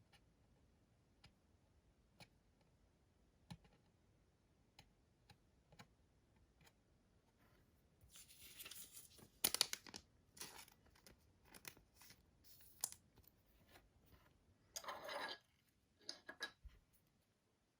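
Clear acetate trading cards being handled and slid against one another. Faint ticks give way, about halfway through, to several seconds of rustling with short sharp bursts, and another burst near the end.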